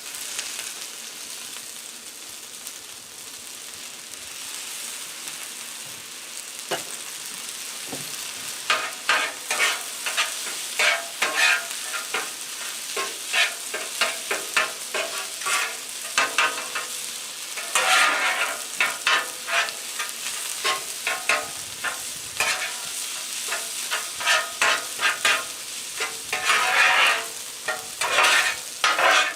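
Fried rice sizzling on a Blackstone flat-top griddle. From about eight seconds in, metal spatulas scrape across the steel top in quick, repeated strokes as the rice is tossed and stirred.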